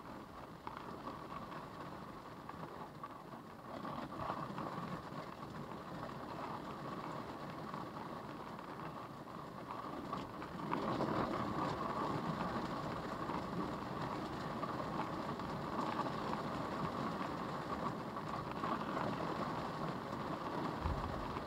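Storm wind and rain buffeting a parked SUV, heard from inside the cabin as a steady rushing noise. It grows louder about four seconds in, and again more sharply about ten seconds in, as the wind strengthens.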